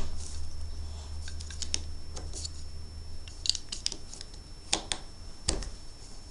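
Plastic Lego bricks being handled and fitted together: scattered small clicks and taps, with two sharper clicks near the end.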